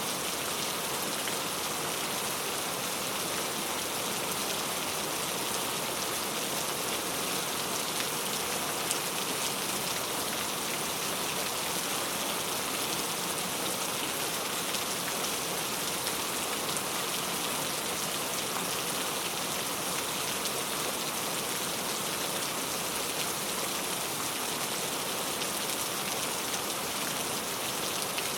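Steady rain falling: an even hiss with the odd faint drop tick.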